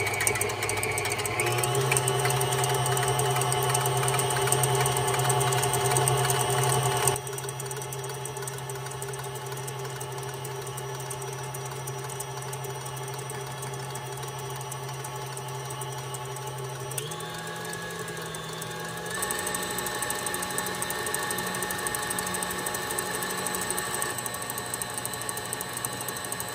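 KitchenAid stand mixer's motor running steadily as its wire whisk beats egg whites in a stainless steel bowl. Its hum steps up in pitch about a second and a half in, turns quieter about 7 seconds in, and steps up again around 17 and 19 seconds, as the mixer speed is changed.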